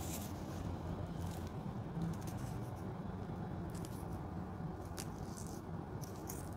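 Paper-and-foil wrapper of an ice cream cone crinkling and rustling in short bursts as it is handled and peeled off, with one sharper crackle about five seconds in, over a steady low hum.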